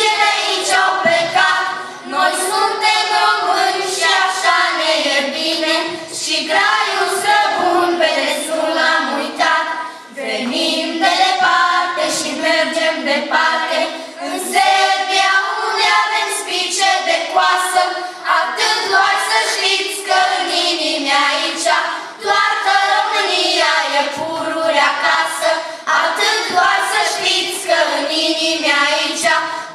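A group of girls singing together into stage microphones.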